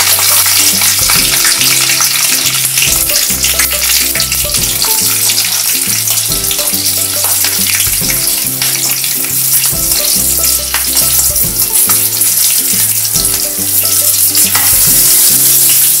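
Mustard seeds, a dried red chilli and green chillies sizzling in hot oil in a kadai, with scattered crackles, while a metal spatula stirs them: a tempering (phoron) being fried. Background music plays underneath.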